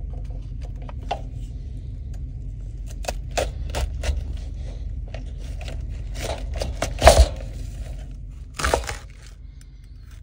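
Food-prep handling on a wooden cutting board: scattered short knocks, scrapes and crinkles from a knife, plastic food packaging and cabbage leaves, with one louder knock about seven seconds in.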